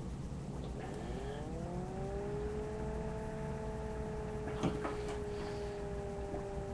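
A machine hum that rises in pitch for about a second and a half, then holds steady on a few tones, with one short click partway through.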